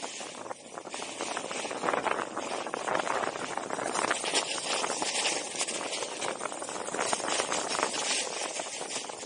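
Snowboard base and edges hissing and scraping over firm groomed snow through a run of turns, with wind rushing across the microphone. The scraping rises and falls in loudness.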